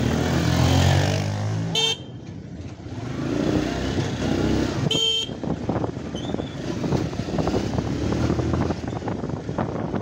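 Motorcycle engine running as the bike rides slowly through traffic, a little louder in the first two seconds. A horn beeps briefly twice, about two seconds in and about five seconds in.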